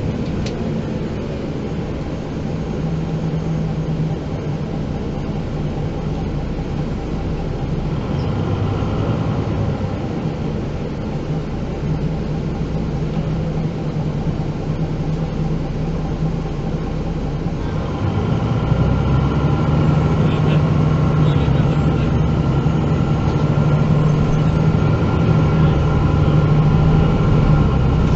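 Diesel engine of a MAN NG 313 articulated city bus heard from inside the bus, running steadily with a low hum, growing louder about two-thirds of the way through as the engine works harder.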